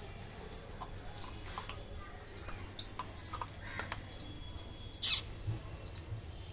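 Beagle puppy eating dry kibble from a stainless steel bowl: irregular crunching and clicks of pellets against the metal, with one louder, brief sharp noise about five seconds in.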